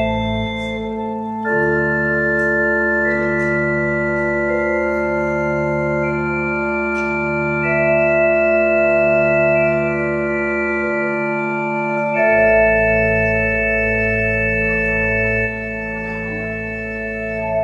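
Pipe organ playing slow, sustained chords over a low pedal bass, moving to a new chord every few seconds.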